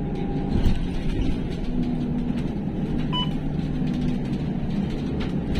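Steady engine and road rumble heard inside a moving bus, a low drone, with a short electronic beep about three seconds in.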